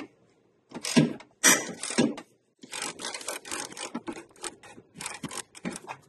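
Ratchet wrench on a long extension unscrewing a 17 mm engine mount bolt, its pawl clicking with each stroke: a few longer strokes, then a quicker run of short strokes from about two and a half seconds in.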